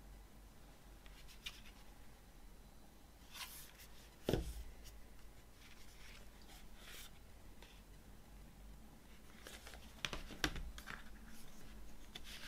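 A cardboard CD digipak and its paper booklet handled over a wooden table: soft rustles and slides of paper and card. There is a sharp knock about four seconds in and another cluster of knocks around ten seconds, as the digipak is put down on the table and opened out.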